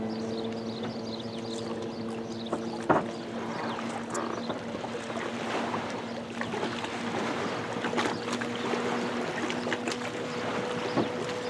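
Yamaha XLT800 WaveRunner's three-cylinder two-stroke engine running at speed as a steady drone, its pitch rising slightly past the middle, over a hiss of spray and wind. There is one sharp knock about three seconds in.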